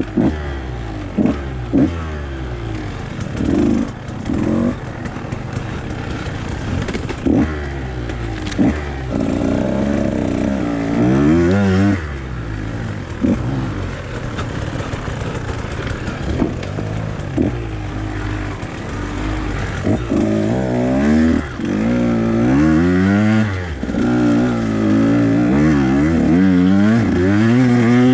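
Two-stroke enduro dirt bike engine revving up and down again and again, its pitch repeatedly climbing and falling back, with short sharp knocks and clatter in between.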